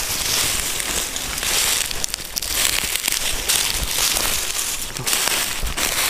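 Footsteps crunching through dry leaf litter, a step about every second, close to the microphone.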